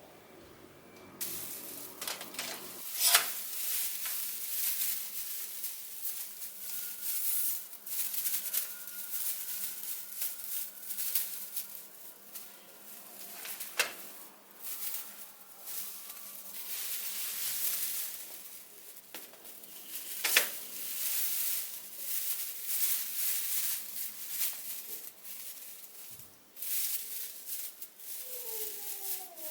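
Rustling and handling noise with light clicks and a few sharper knocks, as objects are unpacked and set in place by hand. A short falling tone sounds near the end.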